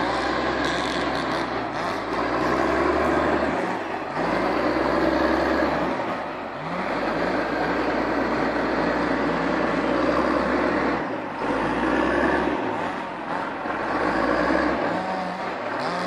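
Caterpillar wheeled skidder's diesel engine running hard under load, its revs rising and falling as the machine climbs and rears up on a steep slope.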